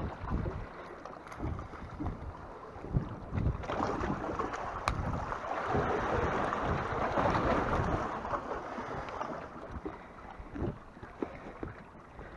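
Wind buffeting the microphone over sea water washing against the shore rocks, swelling for several seconds in the middle, with scattered low handling knocks and one sharp click about five seconds in.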